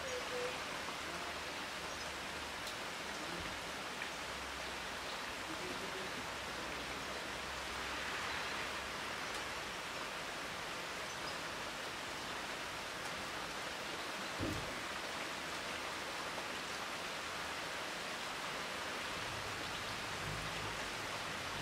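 Steady summer rain falling on trees and foliage, a constant even hiss. A single brief low thump comes about two-thirds of the way through.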